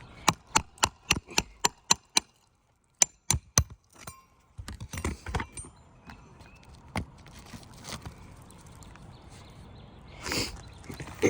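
Quick, sharp strikes in an even run of about three or four a second, then four more after a short pause, followed by scattered knocks and scraping: a hammer tapping a nail-removal tool under asphalt roof shingles to cut or pull out the nails.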